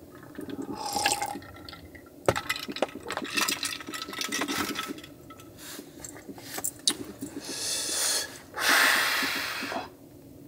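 Water being poured and splashing in bursts, loudest near the end, among knocks and clatter of things being handled.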